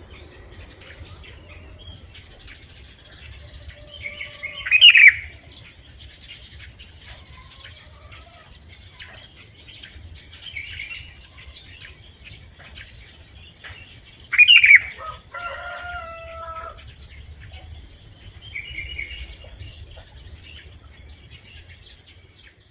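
Sooty-headed bulbuls (kutilang) calling with short chirps, twice breaking into a loud sharp call, about five seconds in and near the middle. A steady high-pitched whine runs underneath throughout.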